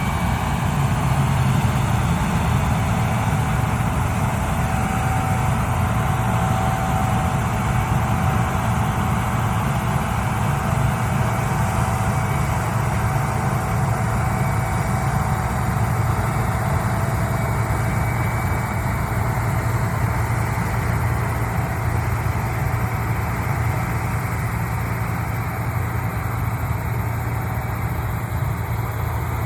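Gleaner combine harvester running steadily, a low diesel engine drone under the even noise of the machinery, with a faint steady whine.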